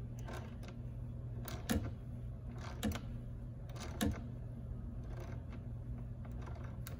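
A thread tap being turned by hand into a plastic screw boss with a small ratcheting handle, giving a series of sharp clicks about once a second as the tap cuts new threads.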